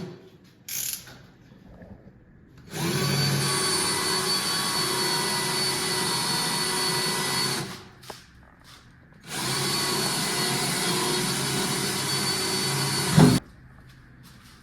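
Electric power drill running in two long steady runs of about five and four seconds, with a constant motor whine, boring a hole in a wooden door for a lock. The second run ends with a short sharp knock.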